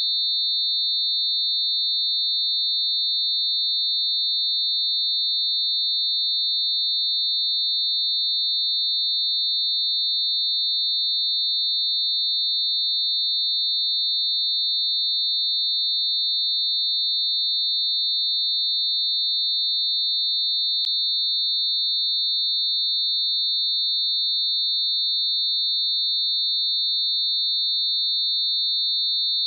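Synthesized test tone: a few closely spaced pure tones mixed near 4000 hertz, giving one steady, high-pitched, unchanging tone. There is a faint click about 21 seconds in.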